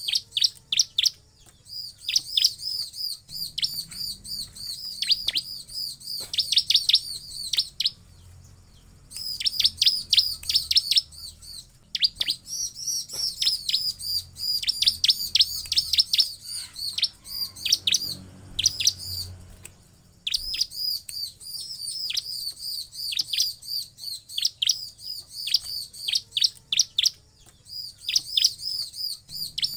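Bar-winged prinia (ciblek) calling: rapid runs of sharp, high chirps, each a quick downward flick, in phrases broken by short pauses.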